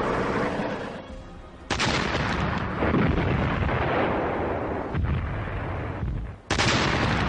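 Artillery fire: a sudden blast about two seconds in that rumbles on for several seconds, then another sharp blast near the end.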